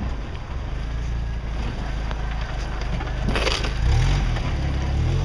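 Jeep engine running at low revs on a rocky trail, with a short crunch about three and a half seconds in, then the engine revving up near the end.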